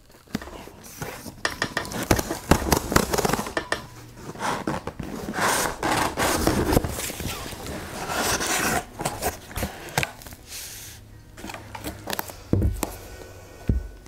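Cardboard shipping box torn open by hand, picked up close by a clip-on mic: rips of the tear strip, scraping and rustling of the flaps. The sound gets quieter later on, with a couple of dull knocks near the end as the boxes are handled.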